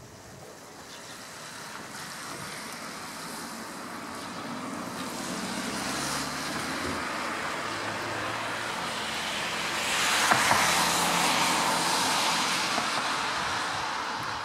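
A motor vehicle approaching and passing close by. Its engine and tyre noise grow steadily louder, are loudest about ten seconds in, then begin to fade.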